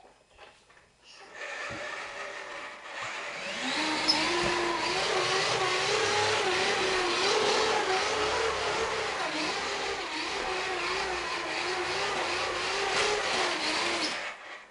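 Small electric motor of a toy bulldozer whining. It spins up with a rising pitch about three seconds in, runs with a slightly wavering pitch, and stops suddenly near the end.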